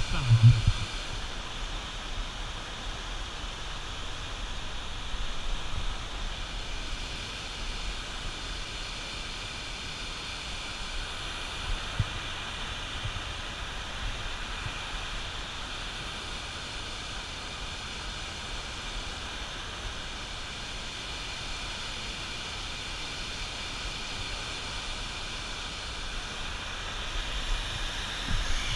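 Turbulent white water rushing below a dam, a steady even rush of noise. A short low thump on the microphone about half a second in.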